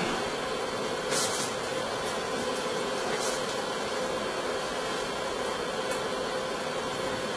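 Steady background hiss with a low, even hum underneath, broken by three short, soft high-pitched rustles about a second, three seconds and six seconds in.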